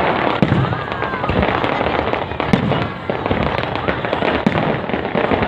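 Fireworks going off: a dense, continuous run of bangs and crackling, with a brief whistle gliding up and down in pitch about a second in.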